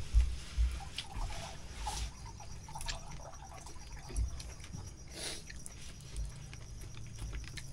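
People eating grilled fish with their hands, picking the flesh apart on banana leaves and chewing, with a few soft knocks on the table.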